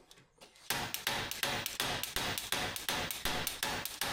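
Slide hammer being yanked to pull a rear wheel hub, its sliding weight slamming against the stop in quick metal-on-metal clanks, about four or five a second, starting just under a second in.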